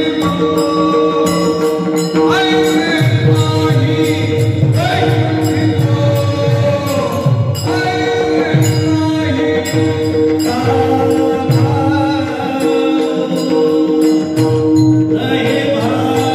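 Warkari devotional bhajan: men singing a kirtan melody in chorus, with taal hand cymbals jingling in a steady rhythm and deep strokes of a mridang (pakhawaj) drum, over a steady drone note.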